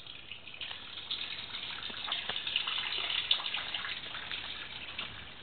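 Wet, splashing hiss of water that swells over a couple of seconds and then fades.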